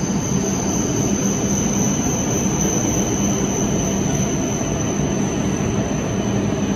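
Steady running noise of a moving passenger vehicle heard from inside the cabin: an even rush and rumble with a thin high whine held over it.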